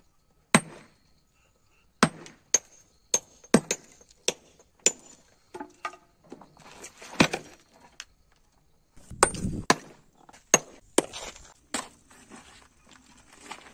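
Sledgehammer blows on granite blocks being split by hand: about a dozen sharp, irregularly spaced cracks of steel on stone, several with a brief high metallic ring. About nine seconds in, a heavier, longer crash with a low rumble.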